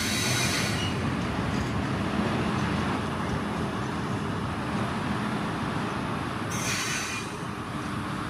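Train rolling past and pulling away: a steady rumble of wheels on the rails that slowly fades. A high-pitched wheel squeal sounds in the first second and again briefly at about six and a half seconds.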